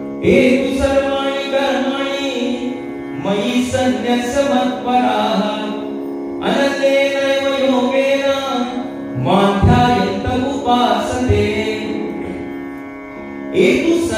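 Devotional chanting: a voice sings a series of phrases, each about three seconds long, over a sustained instrumental drone, with a few drum strokes.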